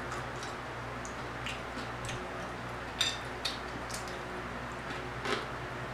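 A person eating with their fingers close to the microphone: scattered short wet mouth clicks and smacks, the sharpest about three seconds in and again near the end, over a steady low hum.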